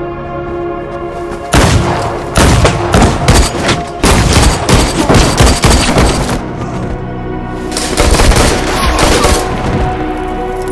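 Rapid handgun gunfire sound effects from a film shootout, in a long volley from about a second and a half in until about six seconds in and a shorter one around eight seconds, over a music score.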